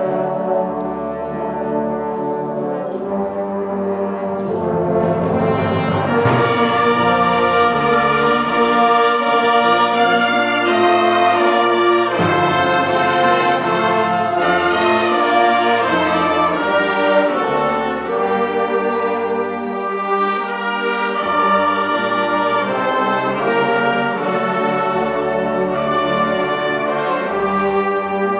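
Brass band playing a slow hymn in full chords, with trombones, horns and trumpets over a sustained bass line that changes with the harmony. The music grows louder from about six seconds in.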